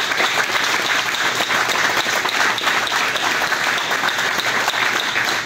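A small group applauding: many pairs of hands clapping together, steady.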